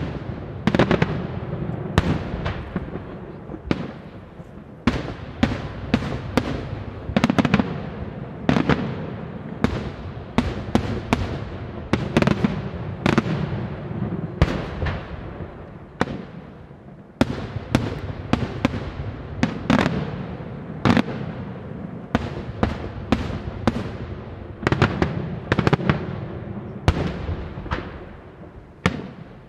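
Daytime aerial fireworks shells bursting in a rapid, irregular barrage of loud bangs, each followed by an echoing rumble. There is a short lull about halfway through, and the barrage thins out near the end.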